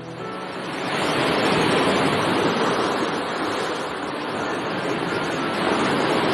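Sea waves washing on the shore: a steady rushing noise that builds up over about the first second.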